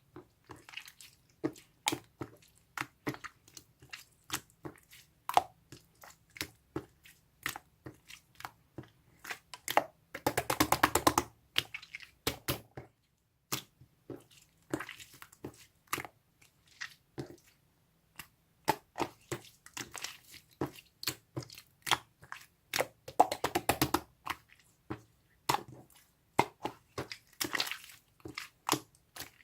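Slime being pressed and poked by hand, giving irregular sticky clicks and pops, with two spells of fast crackling, about ten seconds in and again past twenty seconds.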